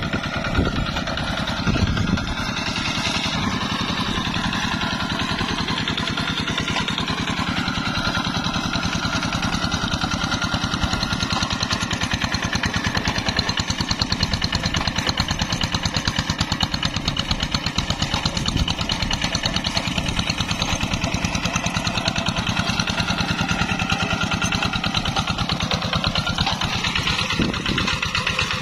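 Single-cylinder diesel engine of a two-wheel hand tractor running steadily with an even, rapid chugging beat while its cage wheels work through a flooded rice paddy.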